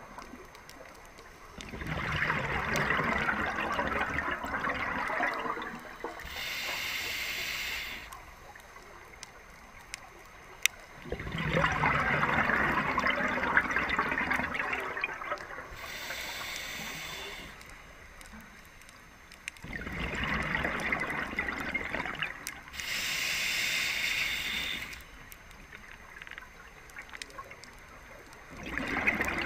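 Scuba diver breathing through a regulator, slow and even: long bubbling exhales alternate with shorter hissing inhales, about one full breath every nine seconds.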